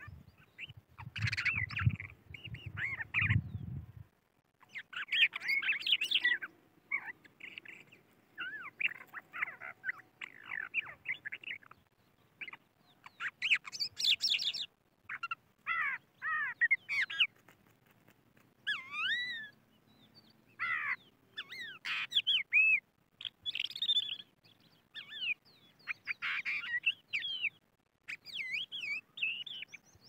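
Crested lark singing: a run of short phrases of fluting, sliding whistles, each a second or two long, with brief pauses between them.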